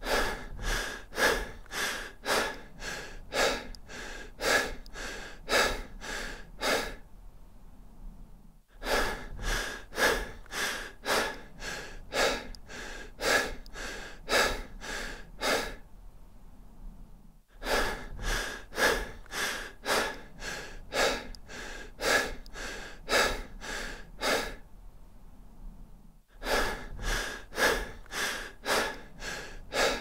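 A person breathing deep and fast: quick, hard in-and-out breaths, about two to three a second, in runs of about seven seconds with short pauses between them.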